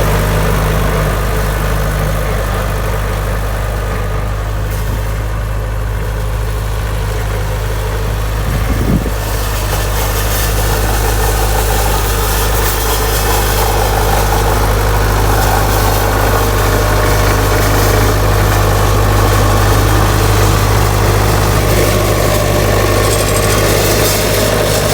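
An engine idling steadily, a low even hum, with a single short knock about nine seconds in.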